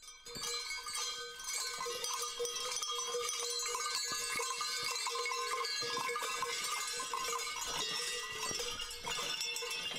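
Many large Krampus cowbells worn on the costumes clanging together continuously as the Krampus figures move, a dense jangle of several bells at once. It starts suddenly right at the beginning.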